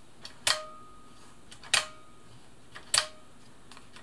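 Buttonhole selector dial of a Bernina 1000 Designer sewing machine clicking into its detent steps as it is turned, now turning freely after being freed with penetrating oil. Three sharp clicks, each with a short ring, come about a second apart.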